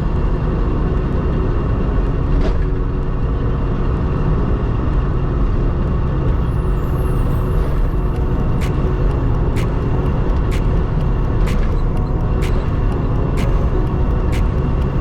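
Haul truck's engine running steadily, with a regular faint click about once a second starting a little past halfway.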